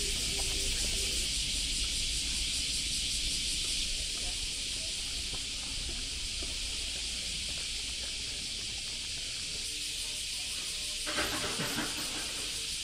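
Summer cicada chorus: a steady, shrill, hiss-like drone from the trees. A short burst of lower noise cuts in about eleven seconds in.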